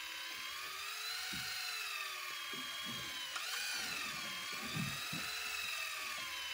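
Daiwa electric reel's motor winding in line against the pull of a hooked fish, a steady whine that wavers slowly up and down in pitch as the load changes.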